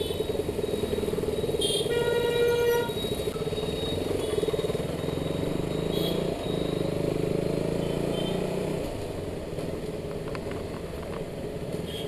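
Single-cylinder KTM Duke motorcycle engine running steadily at low speed in traffic, with a vehicle horn sounding once briefly about two seconds in.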